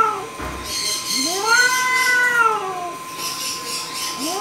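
Domestic cat yowling: one long, drawn-out caterwaul about a second in, its pitch rising then falling, with the next call starting at the very end. It is the threatening yowl of a cat facing off against another cat through a window.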